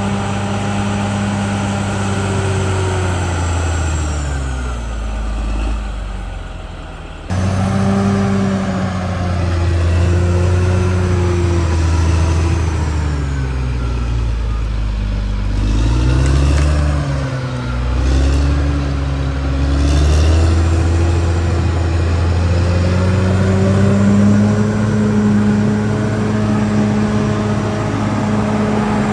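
CAT D6R XL bulldozer's diesel engine running at work, its speed dropping and climbing again several times. The sound jumps abruptly about seven seconds in.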